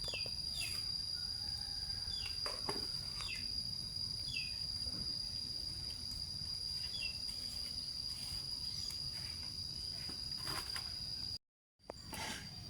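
Insects keep up a steady high-pitched trill, with short falling chirps repeating every second or so over a low outdoor hum. The sound cuts off suddenly shortly before the end, and a few short knocks follow.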